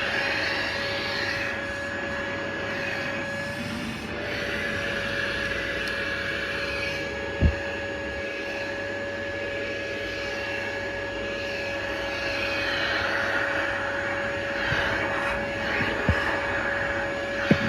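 A steady machine whir with a constant whine, like a motor or fan running, broken by a short sharp thump about a third of the way in and two more near the end.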